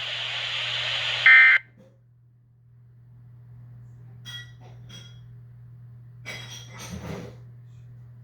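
Weather radio hiss ending in a short, loud burst of EAS end-of-message data tones, after which the broadcast cuts off. A low steady hum remains, with a few faint short sounds.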